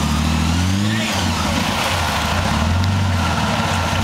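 Jeep Cherokee's engine revving on an off-road trail: the pitch climbs and then drops suddenly about a second in, then swells and eases again with the throttle.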